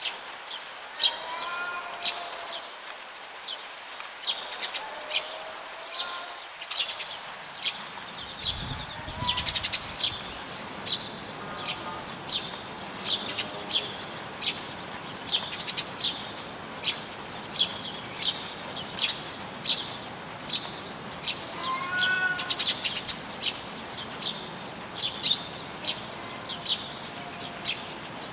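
Small birds chirping in quick, repeated sharp notes. Now and then the drawn-out, wavering threat yowl of a cat in a territorial standoff rises and falls beneath them.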